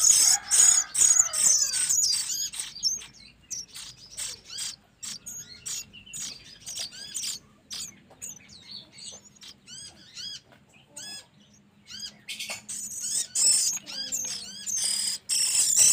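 Velvet-fronted nuthatch nestlings food-begging. Loud, rapid, high shrill calls fill the first couple of seconds, then scattered short chirps follow, and the loud begging starts up again about three seconds before the end.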